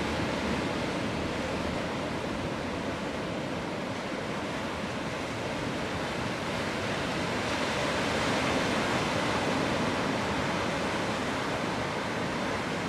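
Ocean surf breaking and washing over rocks, a steady rushing noise that swells a little past the middle.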